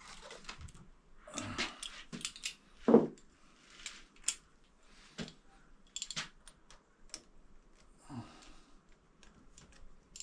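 Small metal clinks and clicks of hand tools and parts being handled while a dirt bike's handlebar clutch lever is fitted. A louder thump comes about three seconds in.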